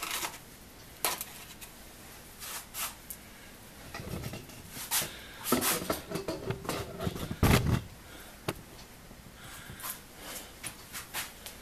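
Metal hardware being handled: carriage bolts clinking and knocking as they are fitted through the mounting holes of a vise base. The knocks come at irregular intervals, with one heavier thump about seven and a half seconds in.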